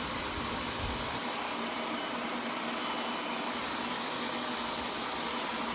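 ILIFE A11 robot vacuum running with a steady whirring motor noise as it makes its way back to its charging dock.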